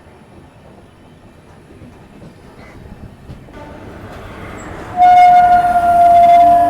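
Indian Railways locomotive horn sounding a long, loud blast about five seconds in, as the train pulls out of the station. Rail and train noise builds gradually before it.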